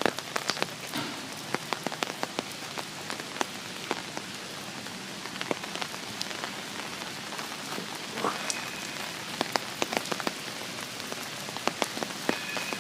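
Steady rain falling, with many sharp individual drops striking close by.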